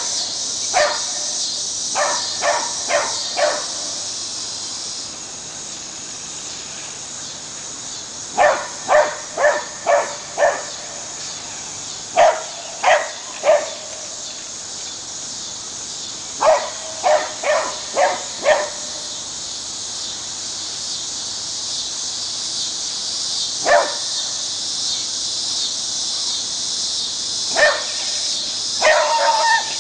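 Beagle barking in quick runs of three to five sharp barks, with single barks in between, over a steady high chorus of insects.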